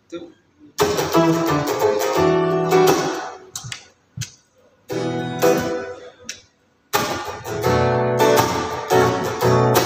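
Acoustic guitar playing picked phrases, starting about a second in and stopping briefly twice before carrying on.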